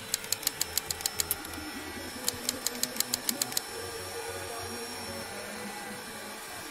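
Quick typewriter-style clicks, about seven a second, in two runs with a pause of about a second between them, over a faint steady hum. It is a typing sound effect for caption text appearing letter by letter.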